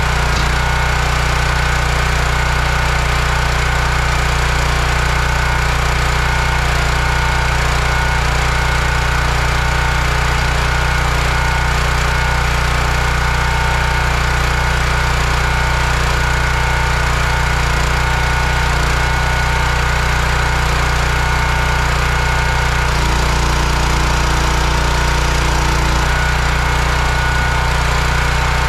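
Small single-cylinder petrol engine of a hydraulic log splitter running steadily at a constant speed. Its note changes briefly about 23 seconds in, then settles again.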